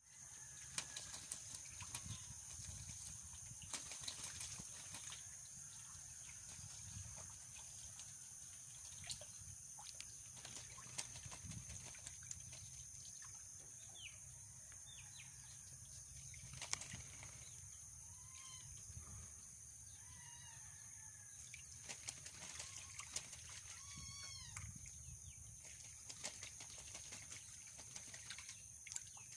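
Ducks bathing in a shallow rain puddle: faint, repeated splashing and wing flapping in water, with a few short chirping calls in the second half.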